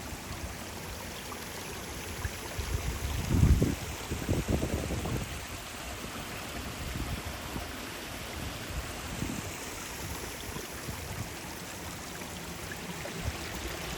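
A small mountain stream running steadily, with a few low thuds about three to five seconds in.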